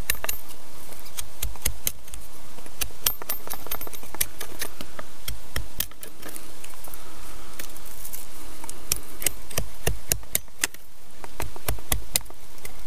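A blade carving and cleaning up a freshly cut birch stake, making irregular clicks and short scrapes as shavings come off the wood.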